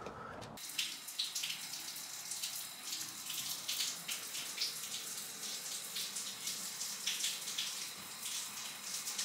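Water running steadily, like a tap left on, a continuous hiss with small splashy crackles that begins about half a second in.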